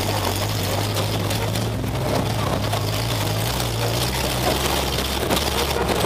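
Demolition derby car's engine running steadily, heard from inside the stripped cab, with loose parts rattling and clicking over it. The engine note drops slightly about two-thirds of the way through.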